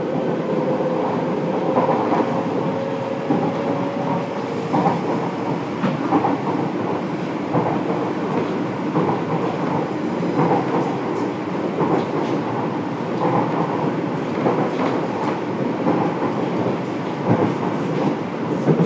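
Fukuoka City Subway 1000N-series train running, heard from inside the passenger car: a steady rumble of wheels on rail with irregular clicks and knocks from the track. A faint whine rises slightly over the first few seconds.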